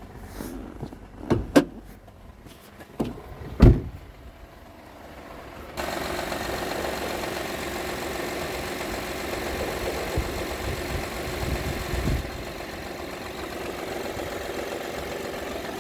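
2016 Honda Odyssey's V6 engine, with a few sharp knocks in the first four seconds. About six seconds in, a louder steady running sound sets in and holds. The owner is chasing a knocking/ticking noise from this engine.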